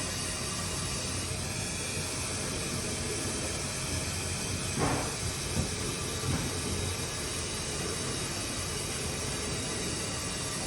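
Steady hiss of a new Ideal commercial gas boiler firing, its fan and burner running while being brought up toward full rate during commissioning. A brief short sound, such as a knock or rustle, comes about five seconds in.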